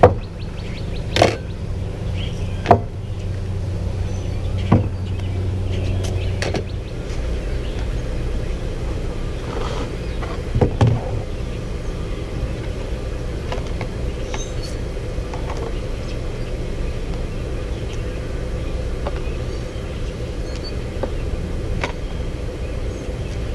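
Four sharp knocks in the first five seconds as cooking things are set down on a camp table, over a steady low rumble that lasts throughout.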